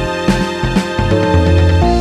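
Upbeat background music with a steady beat, bass and keyboard-like chords.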